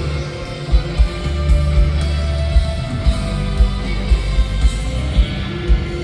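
Live indie rock band playing an instrumental passage: electric guitars and bass held over a steady kick-drum beat of about two hits a second, with no vocals.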